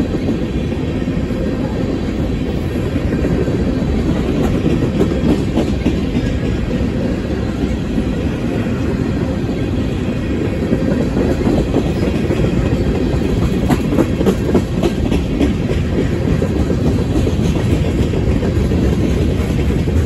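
Freight train cars (tank cars, then boxcars) rolling steadily past: a continuous rumble of steel wheels on rail, with clickety-clack from the wheels crossing rail joints and a flurry of sharper clicks a little past the middle.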